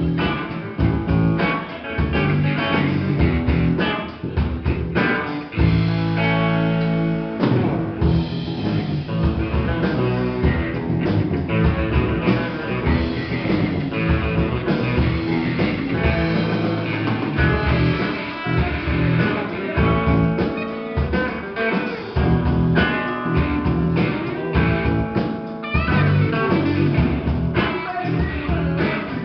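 Rock band playing live: two electric guitars, electric bass and drum kit, with a chord held for a couple of seconds about six seconds in.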